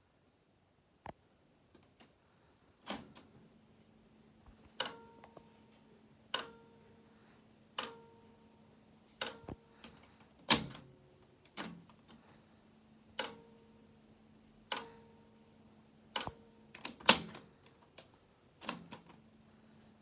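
Cassette deck mechanism making an abnormal noise: a sharp click with a brief ringing tone, repeating about every one and a half seconds, over a faint steady hum that starts about three seconds in.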